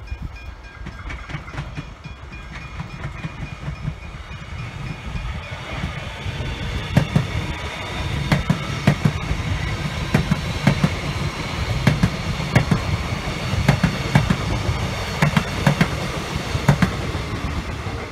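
Melbourne Metro X'Trapolis electric suburban train passing at speed. A rumble builds over the first several seconds, then the wheels click sharply over the rail joints in quick succession as the carriages go by.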